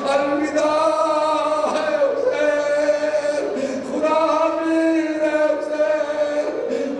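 A man's voice chanting a lament into a microphone in long, held notes with short breaks between phrases: the sung recitation of the Karbala tragedy (masaib) that closes a Shia majlis.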